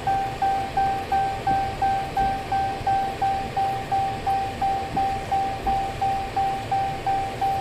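Dodge Challenger's dashboard warning chime: a single-pitched electronic beep repeating steadily about three times a second, with the engine not yet running.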